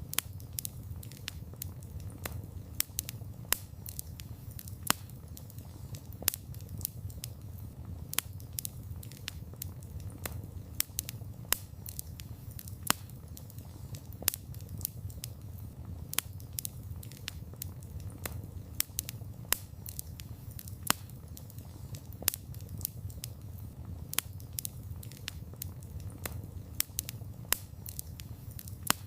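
Wood fire burning: a steady low rumble of flames under many sharp, irregular crackles and pops of burning wood.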